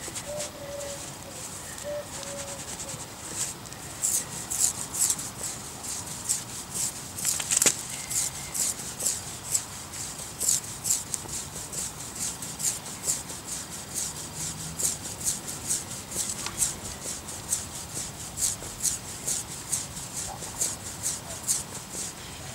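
A hand rubbing briskly over an Abyssinian cat's short coat, giving about two crisp, hissing strokes a second that start a few seconds in.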